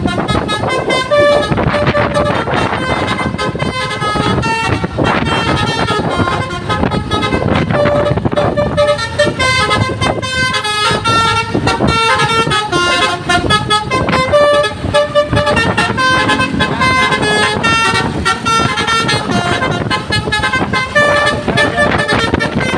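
Basuri V3 multi-tone telolet air horn on a bus, playing a fast tune of short notes that step up and down several times a second without a break, over steady vehicle noise.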